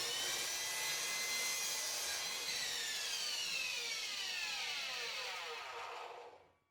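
Power saw set to a 45-degree bevel, running and cutting through the end of a wooden board. About two seconds in its motor is switched off, and the whine falls steadily in pitch as the blade spins down, dying away near the end.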